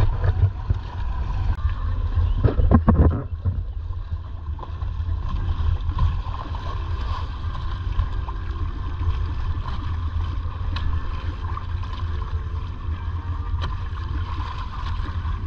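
Wind buffeting the microphone of a camera mounted on a sailing Hobie kayak, with water gurgling and lapping along the hull as it moves; a louder burst of noise comes about three seconds in.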